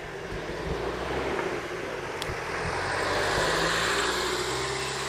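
A car driving past, its engine and tyre noise growing louder to a peak about three and a half seconds in, then easing slightly.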